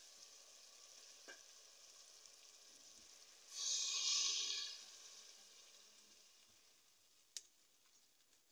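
Potatoes frying in oil and masala in an aluminium pot, with a faint steady sizzle. About three and a half seconds in, water poured from a steel mug hits the hot oil and the sizzle surges loudly for about a second, then dies down. There are a couple of light clicks.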